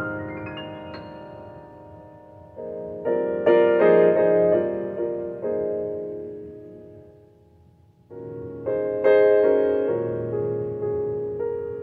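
Piano playing slow chords that are struck and left to ring and fade. About seven seconds in the sound dies away almost to nothing before a new phrase of chords begins.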